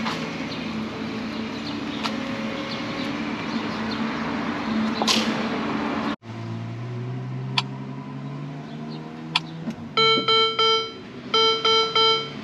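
Ferrari SF90's twin-turbo V8 running steadily at idle. After a sudden cut it is quieter, with a couple of clicks, and about ten seconds in the car's multi-tone warning chime starts beeping in short repeated pulses, several a second.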